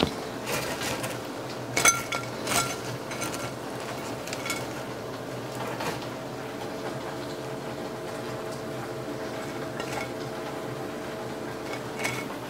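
Scattered clinks and knocks of a ceramic plate and utensils as noodles are portioned onto the plate, several with a short ring and most of them in the first few seconds, over the faint steady sizzle of ground beef cooking in an electric skillet.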